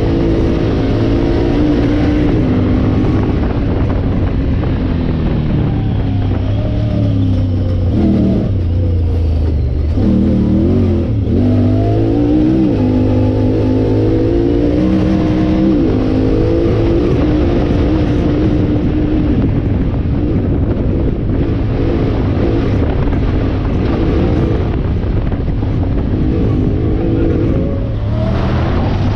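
Vehicle engine running under load, its revs rising and falling again and again over a steady low hum.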